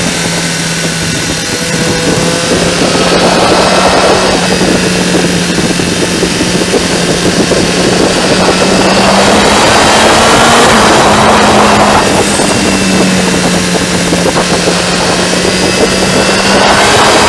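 Sport motorcycle engine running at steady road speed, heard from on board the bike, its note sagging and picking up again gently a few times as the throttle eases and opens through the bends. Wind rush swells over it at times.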